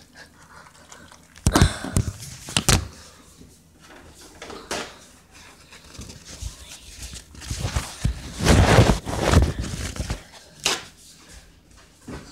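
Handling noise at a kitchen counter: several sharp knocks and thunks, then a few seconds of louder rustling and clattering about eight seconds in.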